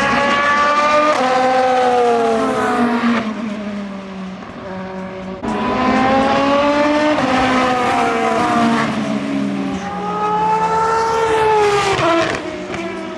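Endurance race cars at speed, passing one after another. Each engine note rises and then falls in pitch as the car goes by, with a short lull about four seconds in before the next cars arrive.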